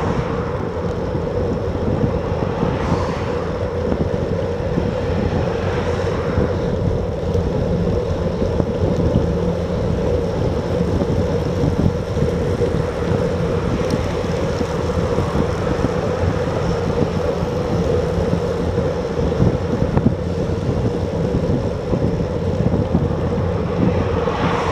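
Wind rushing over a bike-mounted action camera's microphone while riding at about 30 km/h: a steady, dense buffeting noise heavy in the low end.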